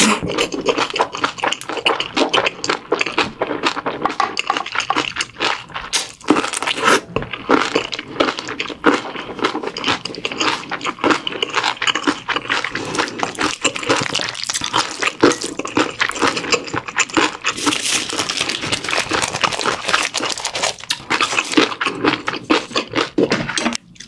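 Close-miked wet chewing of a mouthful of bibimbap with crunchy radish salad and young-radish kimchi: a dense run of small crunches and wet mouth clicks.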